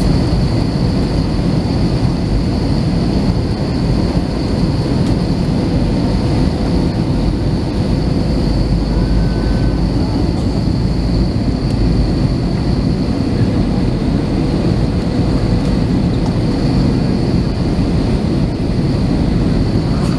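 Steady cabin noise of an Airbus A321 with CFM56-5B engines, heard from inside the cabin: an even low rumble of engines and airflow with a steady high whine on top.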